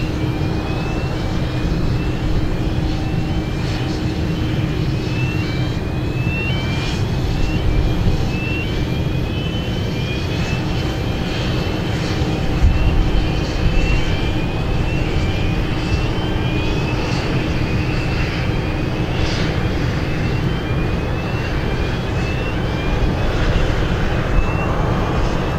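The four jet engines of an Emirates Airbus A380 on final approach and landing: a steady low rumble. A short high rising chirp repeats a little faster than once a second behind it.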